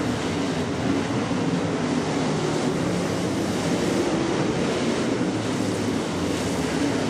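Several dirt late model race cars' V8 engines running together at racing speed: a steady wash of engine noise with no breaks.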